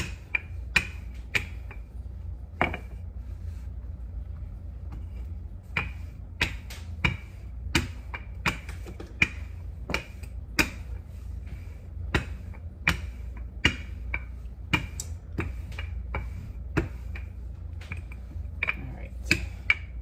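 Wooden rolling pin with handles clacking sharply as it is rolled back and forth over pie-crust dough on a floured countertop. The clicks come irregularly, often a half-second to a second apart, and pause for a few seconds after the first handful.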